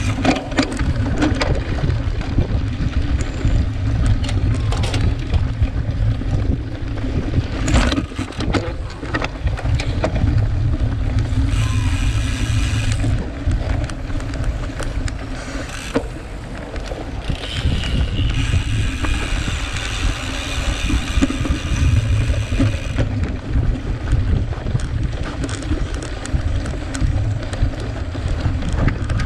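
Wind buffeting the microphone of a camera riding along on a cyclocross bike at race speed, over the rattle of the bike on rough, dry ground, with a few sharp knocks about eight seconds in. A higher buzzing comes in twice, briefly and then for several seconds.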